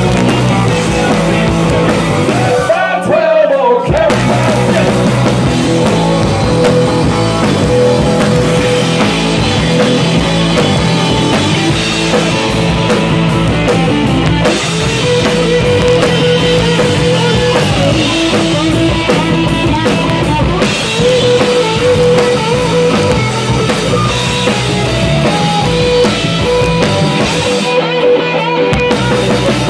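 Live rock band playing loud: electric guitars, bass and drum kit, with a sustained lead guitar line on top. The drums and bass drop out briefly twice, about three seconds in and near the end, leaving the guitar ringing on its own.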